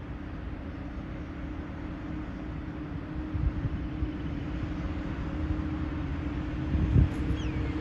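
A vehicle running steadily: a low rumble with a steady hum, two thumps around the middle and near the end, and a brief falling high tone near the end.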